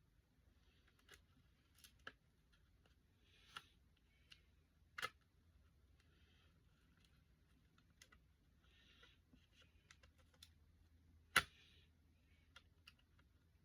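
Things being handled: faint rustling and scattered light clicks and taps, with two sharper knocks about five and eleven seconds in.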